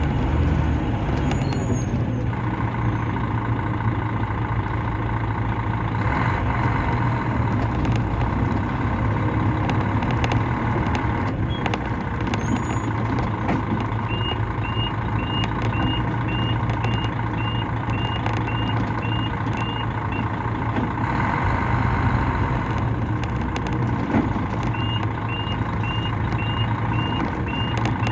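Diesel engine of a Mercedes-Benz O500-RS coach running steadily under way, heard from inside the cabin. Twice in the second half, a short high beep repeats about every half second for several seconds.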